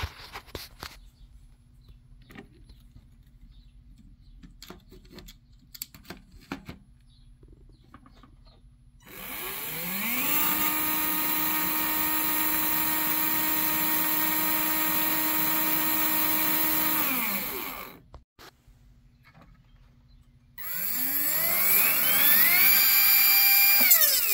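Small brushed DC motors of an RC toy tow truck run one after the other. The stock can motor spins up, holds a steady whine for about seven seconds and winds down. After a short pause a Stage 2 30,000 rpm upgrade motor spins up to a louder, higher-pitched whine.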